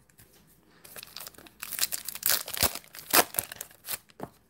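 A trading-card pack's wax paper wrapper crinkling and tearing as it is opened: a quick string of sharp crackles starting about a second in.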